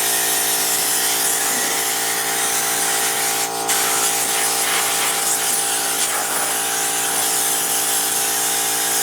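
Air blower running steadily with a motor hum under a strong rush of air, blowing dirt and grass debris off a riding mower's cutting deck.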